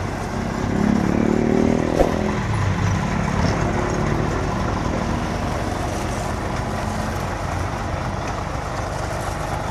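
Scania truck's diesel engine idling steadily while its air system builds up pressure, with a brief swell in the first two seconds and a sharp click about two seconds in.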